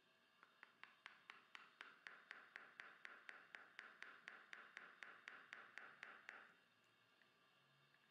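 A surgical mallet gently tapping the handle of a fine-tip straight elevator, about four light taps a second, stopping near the end. The taps drive the elevator into the tooth socket to loosen a single-rooted tooth root.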